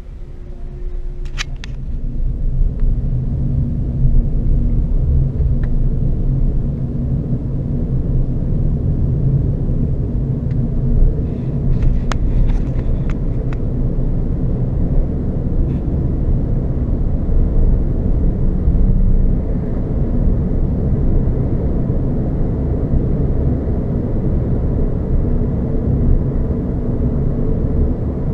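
Renault Zoe electric car driving: a steady low road and tyre rumble, with no engine note, growing louder over the first few seconds. A few sharp ticks come about a second in and again around twelve seconds in.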